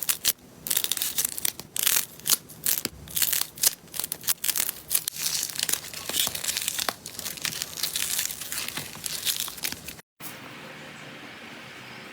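Slime being squeezed and worked by hand, making a dense run of sharp, crinkly crackles and pops. About ten seconds in the sound cuts out briefly and a quieter, steadier rustle follows.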